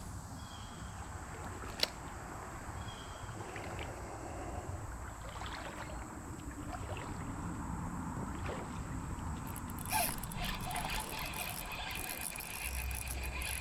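River water trickling, over a low steady rumble of road traffic from the bridge. There is a single sharp click about two seconds in, and a run of quick ticks and splashy noise near the end.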